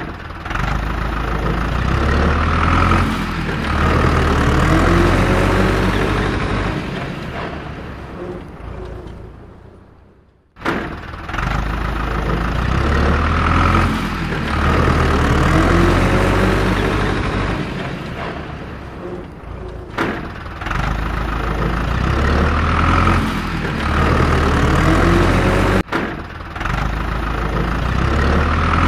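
Recorded heavy vehicle engine sound effect, running with rises and falls in revs. The same clip repeats about every ten seconds, restarting abruptly.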